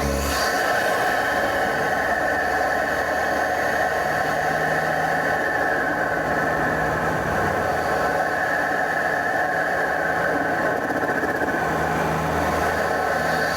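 BMW F30 328i's N20 turbocharged four-cylinder engine, breathing through an aftermarket open intake, running steadily together with road noise at a constant speed, with no revving or turbo flutter.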